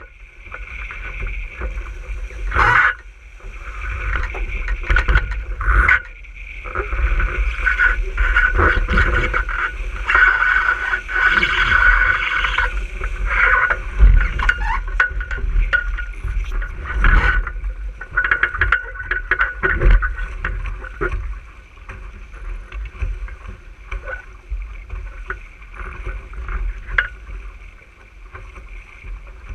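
Water rushing and splashing along the hull of an RS600 sailing dinghy moving at speed, with wind buffeting the microphone. The rush is louder through the middle, and several sharp knocks and splashes come as the boat hits the chop.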